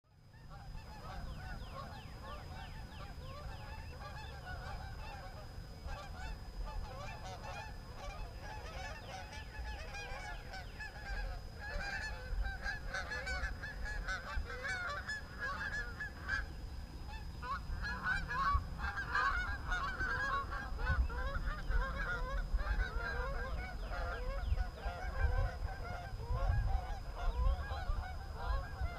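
A large flock of geese honking, many calls overlapping in a continuous chorus that grows gradually louder, over a low rumble and a faint steady high whine.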